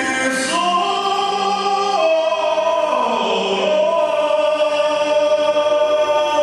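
High-school choir singing, moving through held chords that step down in pitch and then settling into one long sustained chord.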